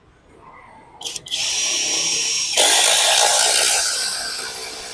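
Amaxtools cordless impact driver on its top speed driving a screw into a wooden log: the tool starts about a second in, runs steadily, gets louder about halfway, then tails off near the end as the screw goes fully home, very fast.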